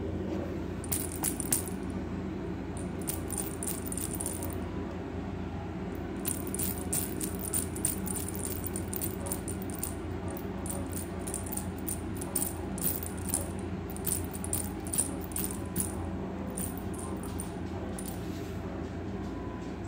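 Irregular flurries of light clicking and rattling over a steady low hum, as cats play with a plush toy fish on a hardwood floor; the flurries come a second in, through the middle stretch, and once more near the end.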